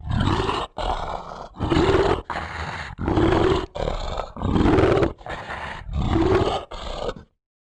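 Animal roar sound effect: five loud roars, each followed by a quieter stretch, the sound stopping suddenly a little after seven seconds in.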